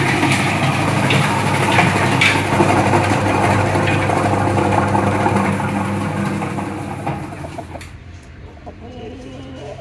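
Shallot-slicing machine running: a steady motor hum with a constant whirring rattle as the small onions are sliced, dying away about seven to eight seconds in.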